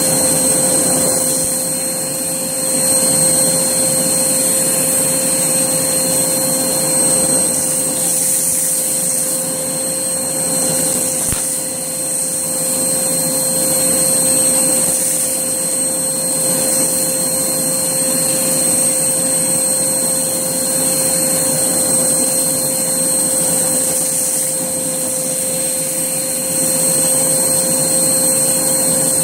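Hoover Blaze vacuum cleaner running steadily with a high-pitched motor whine, vacuuming up a test mess of crunchy debris; the level swells a little as it moves.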